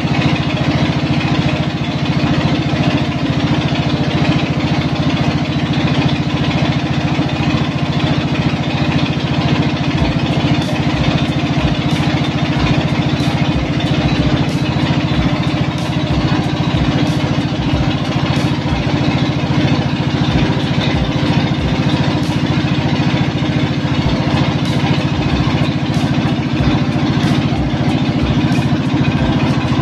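An engine running steadily at an even speed. Light ticks join in about once a second from about a third of the way in.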